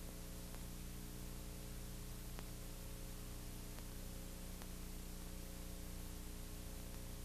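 Steady hiss and low electrical hum with a few faint ticks: the background noise of an old analogue videotape transfer, with no music or speech.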